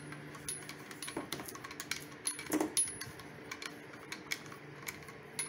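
Light, irregular metallic clicks and rattles of a floor lamp's socket fittings being handled as the threaded screw collar is worked off the socket.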